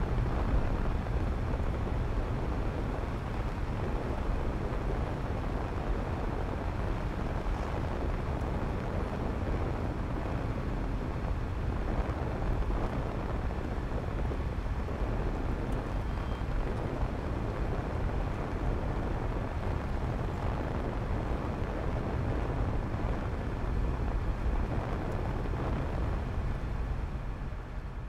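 Steady road and engine noise of a moving car, heard from inside the cabin, fading out near the end.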